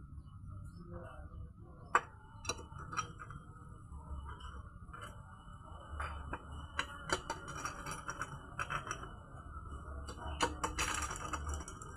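Scattered metallic clinks and clicks of hand tools and bolts during motorcycle engine assembly, with a sharp click about two seconds in and quicker runs of ticks later on and near the end.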